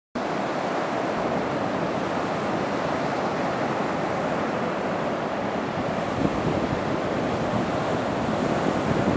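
North Sea surf breaking on a sandy beach: a steady, continuous wash of waves, with wind buffeting the microphone.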